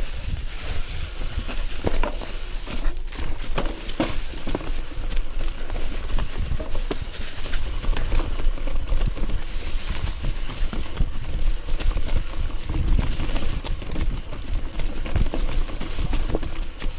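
Mountain bike riding fast down a rocky, leaf-covered forest singletrack: tyres crunching through dry leaves with constant rattling and knocking from the bike over stones and roots.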